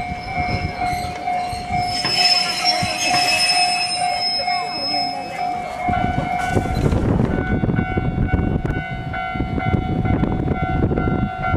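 Level-crossing warning bells ringing in an even, repeating beat over the rumble of Ichibata Electric Railway 3000 series trains and crowd chatter. There is a short louder burst about two seconds in. About seven seconds in, a different crossing bell takes over at a higher pitch as a train approaches.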